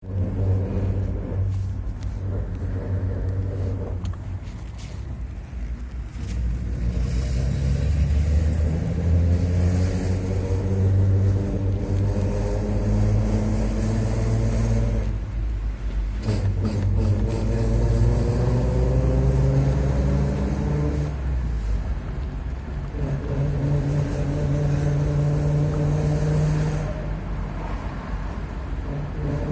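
Car running under way, its engine note rising in pitch as it accelerates, dropping suddenly about fifteen seconds in, then climbing again, over a low rumble. The car is presented as making an abnormal noise.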